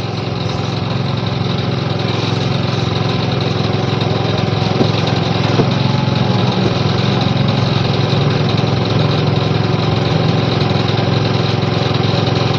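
Small petrol engine of a portable water pump running steadily, pumping water out of a flooded sewer trench.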